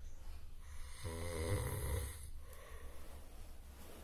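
A sleeping person snoring: one long, low snore about a second in, lasting just over a second, with quieter breathing either side.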